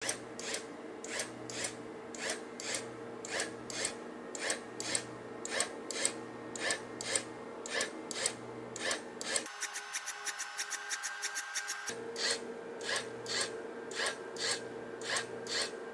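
Homemade electrical discharge machining rig running: short rasping crackles repeat about twice a second over a steady electrical hum. For a couple of seconds near the middle they come quicker, about six a second.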